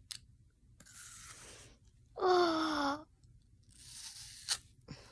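Someone biting into a raw apple: crisp crunching and tearing of the apple flesh, with a sharp crack near the end. Midway comes a short, louder voice sound, an 'mmm' that falls slightly in pitch.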